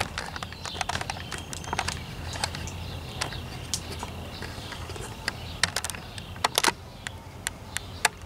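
Clear plastic protective film over a diamond painting canvas crinkling under fingers as they press and slide across it: short, irregular clicks and crackles.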